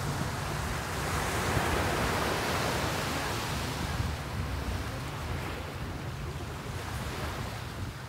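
Calm ocean surf: small waves breaking and washing up a sandy beach in a steady wash that swells about a second in and eases a little after the middle.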